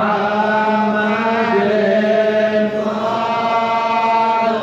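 A man chanting an Arabic religious recitation in a melodic, drawn-out style. He holds long notes that shift in pitch every second or so, without breaking into spoken words.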